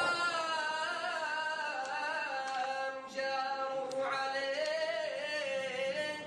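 A man singing unaccompanied in long, drawn-out notes that waver and slide in pitch. Two phrases, with a short break for breath about halfway through.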